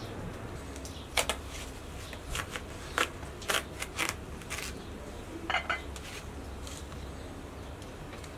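Kitchen knife cutting a watermelon on a metal tray, the blade clinking against the tray and plates in a string of sharp clicks from about a second in to near six seconds.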